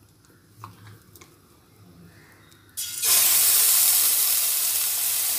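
Onion paste dropped into hot oil in an aluminium kadai, setting off a loud, steady sizzle that starts suddenly about three seconds in. Before it, only a few faint clicks.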